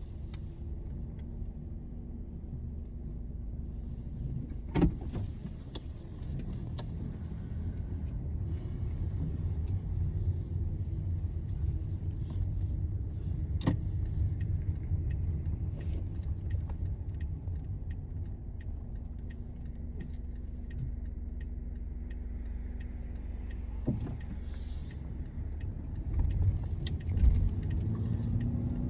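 Car running, heard from inside the cabin: a steady low rumble of engine and road, with a few sharp clicks or knocks.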